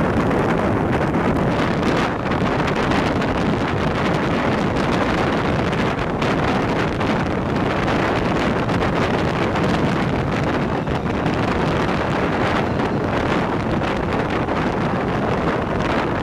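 Steady wind buffeting the microphone over the continuous rumble of a moving train.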